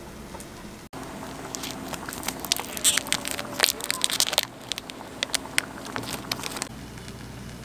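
Octopus fried rice sizzling and crackling in an oiled pan, with dense irregular pops that start a second or so in and die down near the end.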